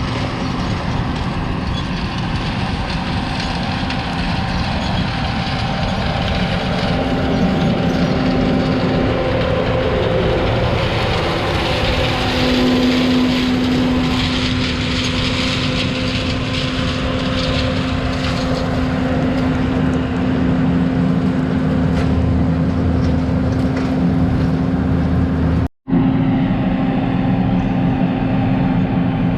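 Large diesel engine of farm machinery running steadily under load, with a steady droning hum that rises a little in pitch partway through. The sound cuts out for an instant near the end.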